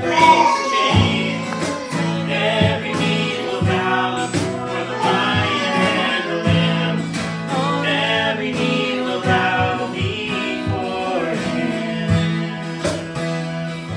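A man singing a worship song while strumming a steady rhythm on an acoustic guitar.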